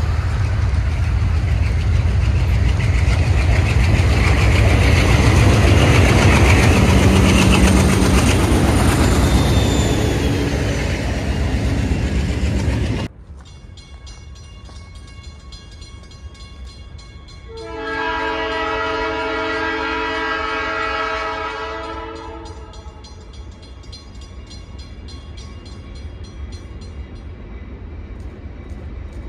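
ALCO diesel locomotives running loud, a heavy engine rumble with rail noise, which cuts off abruptly about 13 seconds in. After a quieter stretch, a locomotive horn sounds one long chord of about four seconds over a low rumble.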